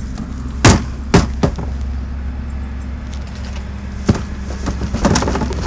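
Plastic wheelie-bin lid and bin knocking sharply a few times, in the first second and a half and again about four seconds in, then rustling and scratching in the garbage near the end. Under it runs a steady low engine hum.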